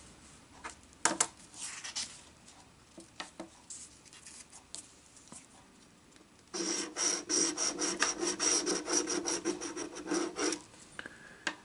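Scratch-off lottery ticket being scratched, about four seconds of rapid scraping strokes across the coating starting a little past halfway, after faint clicks and rustles of the paper tickets being handled.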